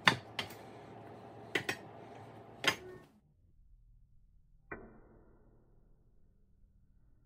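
A chef's knife chops tomatoes on a wooden cutting board, with about five sharp knocks of the blade on the board in the first three seconds. Then, near the middle, a single knock as the knife blade is struck into an avocado pit.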